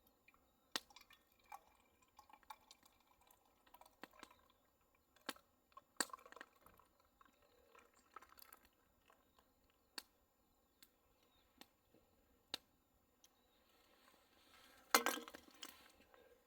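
Faint, scattered small clicks and taps, like utensils or gear being handled, with a louder brief clatter near the end.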